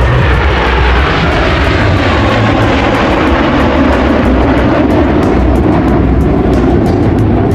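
Fixed-wing aircraft flying past at an airshow: a loud, steady engine roar with a faint tone that slowly falls in pitch over the first few seconds.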